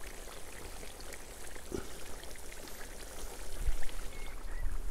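Beef, carrot and chickpea broth simmering in a kazan, a steady soft bubbling with scattered small ticks and a couple of soft knocks.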